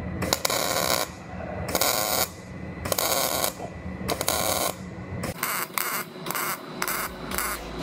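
MIG welder laying short tack or plug welds on sheet-metal body panels, each weld a half-second burst of crackle. About four bursts come roughly a second apart, then a quicker run of shorter bursts near the end.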